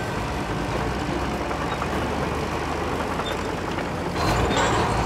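Heavy diesel engine of a Caterpillar D10 bulldozer running under load while pulling a stuck dozer, getting louder about four seconds in.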